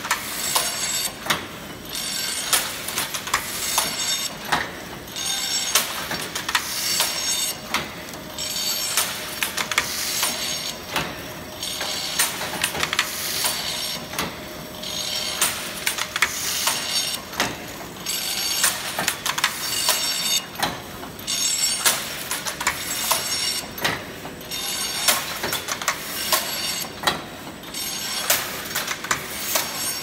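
Automatic CNC crimped wire mesh weaving machine running: a steady stream of sharp metal clanks and rattles from its weaving strokes, with a faint steady whine for a while in the middle.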